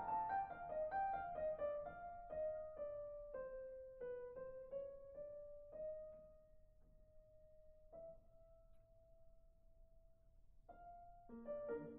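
Soft solo piano background music: single notes struck about twice a second, drifting down in pitch, then one long held note, with fuller chords coming back near the end.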